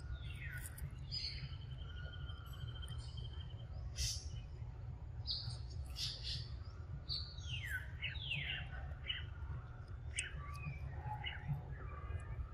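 Birds chirping and calling: a trill about a second in, then many short, quickly falling calls, over a steady low rumble.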